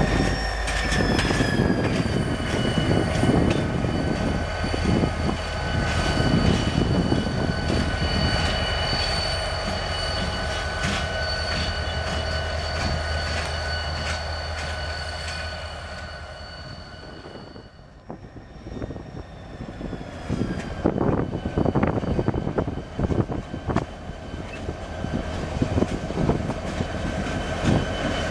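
EMD GP39V diesel locomotive in BN green running by, with a steady engine rumble under a high whine that drops slightly in pitch about a second in. Near two-thirds of the way through, the sound dips away and gives way to a diesel locomotive hauling covered hoppers as it approaches, its whine joined by repeated wheel clacks on the rail joints.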